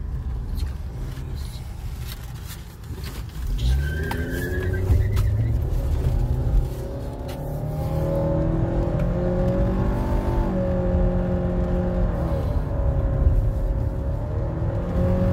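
Car engine and road noise heard from inside the cabin while driving. About four seconds in, the engine note rises as the car picks up speed, then settles into a steady hum with small shifts in pitch.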